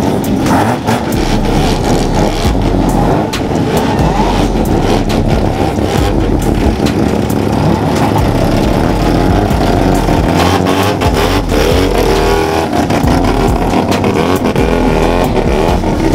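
Modified Mazda rotary engine running loud and being revved, its pitch sweeping up and down several times.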